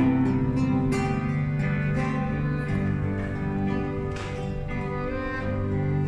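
Live church music ensemble playing: acoustic guitar chords struck about once a second under long held violin and cello notes.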